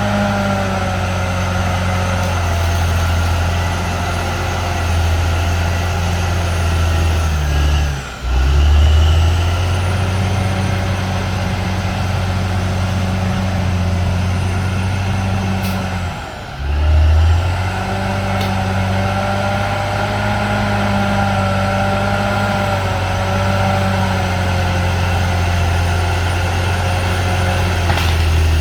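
CAT D6R XL bulldozer's diesel engine running steadily under load, with a higher whine riding above it. The sound drops out briefly twice, about 8 and 16 seconds in, and returns each time with a short louder surge.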